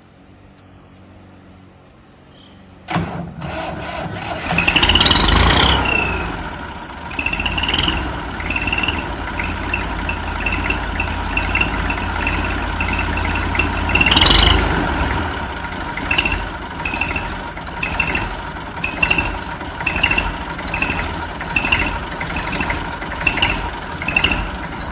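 IMT 533 tractor's three-cylinder diesel starting about three seconds in, revved up twice and then idling. A short squealing chirp repeats a bit more than once a second and rises in pitch as the engine revs: the noise of a loose fan belt with too much play, slipping on its pulleys.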